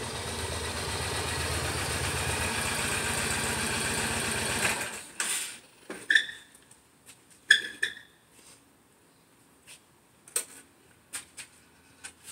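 2006 Yamaha Stratoliner's V-twin engine running at low speed as the bike pulls in, then switched off about five seconds in. Afterwards only scattered short clicks and a couple of brief squeaks.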